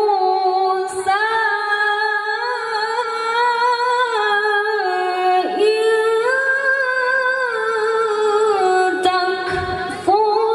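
A woman reciting the Qur'an into a microphone in the melodic tilawah style: long held notes that turn through ornamented, melismatic runs, with a short break for breath about halfway through.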